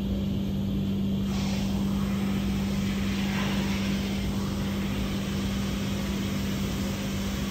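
Steady machinery hum in a window-testing lab, with a low drone and a broad hiss of rushing air that comes up about a second in.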